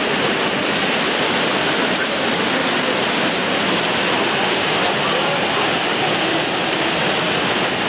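Heavy rain pouring steadily onto a tent roof: a loud, even hiss.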